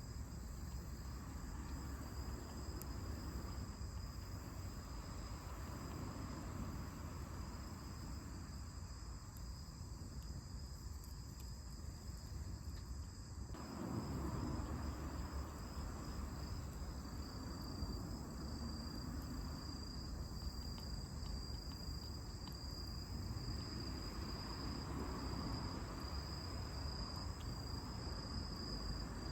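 Crickets trilling steadily at one high pitch, a continuous pulsing chorus over a low rumble.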